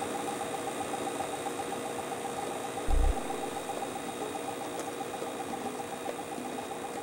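Shibaden SV-700 half-inch reel-to-reel video tape recorder running: a steady mechanical hum with a fast, even pulsing. A short, deep thump comes about three seconds in.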